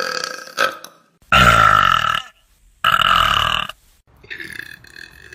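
A run of human burps in quick succession. A burp trails off near the start, then come two loud, low-pitched belches about a second long each, and a quieter, higher-pitched burp near the end.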